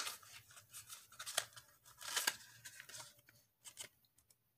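Crinkling and clicking of plastic cosmetic packaging handled by hand: a single eyeshadow in a clear plastic case and pink pouch. A run of sharp crackles and clicks stops about three and a half seconds in.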